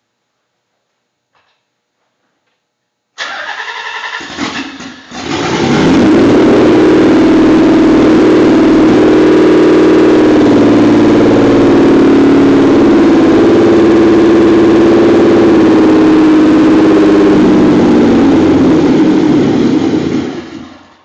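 Nissan 300ZX twin-turbo's VG30DETT V6 cranked by the starter for about two seconds, catching and settling into a loud, rough idle with its mass airflow sensor unplugged and the idle set slightly higher. It runs steadily for about fifteen seconds, then stops near the end.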